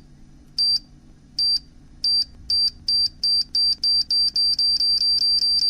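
Electronic beeper sounding short, high beeps that come faster and faster, from under one a second to about four a second: a time-bomb countdown sound effect. A faint low hum runs under the beeps.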